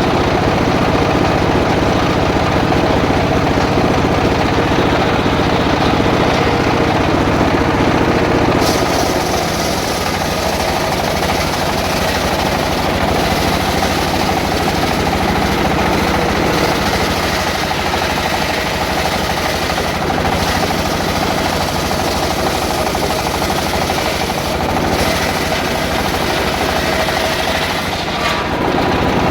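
Power saw running continuously while cutting jackfruit wood into board stock. Its sound changes about nine seconds in, with a short dip near the end.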